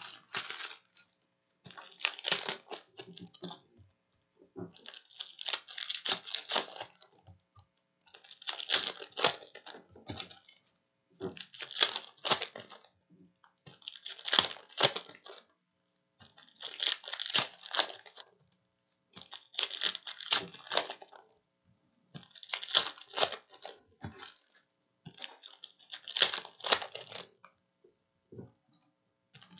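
Foil wrappers of Panini Prizm retail basketball card packs being torn open and crinkled, one pack after another, about every two and a half seconds.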